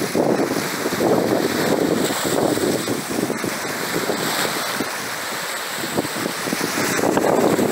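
Strong storm wind buffeting the microphone, over choppy water with whitecaps slapping and splashing. The gusts ease about five seconds in and pick up again near the end.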